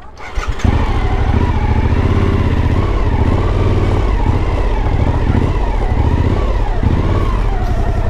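Suzuki V-Strom 1050XT motorcycle's V-twin engine running at low revs as the bike rolls slowly forward, coming in loud about half a second in and holding a steady rumble with slightly wavering pitch.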